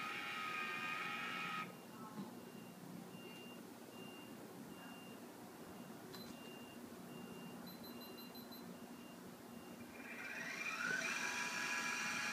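Sky-Watcher AllView robotic mount's motors whining as it slews the camera to the next panorama position, for the first second and a half and again from about ten seconds in, with a short rising glide near the end. In between, a faint high beep repeats about twice a second, with a single click about six seconds in.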